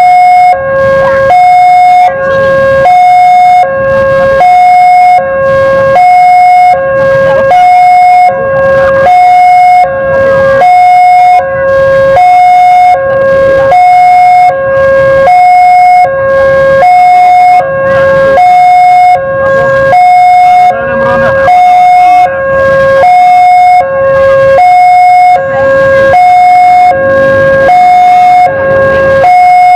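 Railway level crossing warning alarm sounding a steady electronic two-tone signal. A high tone and a low tone alternate about every 0.7 s and repeat without a break. It signals a train moving through the crossing.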